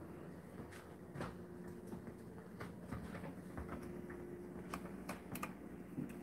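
Faint, irregular light clicks and taps, about a dozen in all, over a faint steady low hum.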